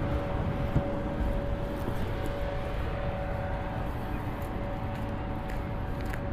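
Steady outdoor street background: a low rumble with a constant mechanical hum held at a few fixed pitches throughout.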